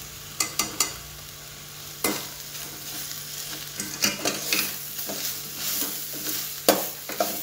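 A steel spoon stirs and scrapes thick prawn sukka in a stainless-steel pot. The spoon clinks and knocks against the metal: three quick knocks about half a second in, more scattered through the middle, and the loudest near the end. Under it runs a light, steady sizzle of the masala frying.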